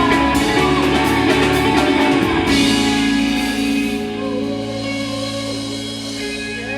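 Live rock band with electric guitars and drums playing the end of a song. About two and a half seconds in comes a last full hit, after which the chord rings out and slowly fades.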